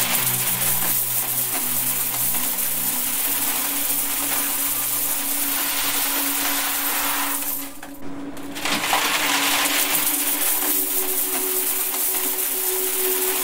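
A stream of coins pouring into a metal box full of coins, a dense continuous clinking rattle. It drops out briefly about eight seconds in, then starts again. A steady low hum runs underneath.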